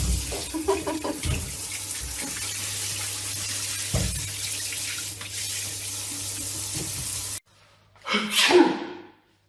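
Steady rush of running water, like a tap or shower, with a few small knocks in it, cutting off abruptly; about a second later comes a short, loud burst of sound.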